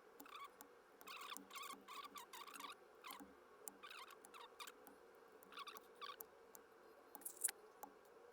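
Faint, scattered plastic clicks and brief squeaky scrapes, several times, from keyboard switches being fitted onto a mechanical keyboard.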